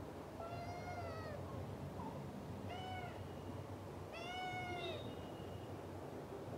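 A kitten meowing three times: short, high-pitched calls that rise and then fall in pitch, each under a second long. The last meow is the loudest.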